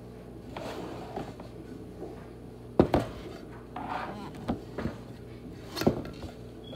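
Kitchen clatter around a black speckled enamel roasting pan. There is a sharp clank about three seconds in as the pan is set down on the wooden counter, then lighter knocks, and another sharp knock just before the end as spinach goes into the pan.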